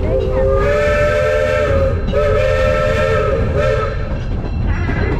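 Coal-fired steam locomotive's chime whistle blowing two long blasts of about two seconds each, several tones sounding together with a hiss of steam, over the low rumble of the moving train.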